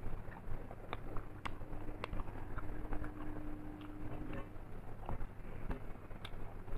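Close-up eating sounds: chewing, with scattered wet clicks and smacks of the mouth at an uneven pace, over a low steady hum.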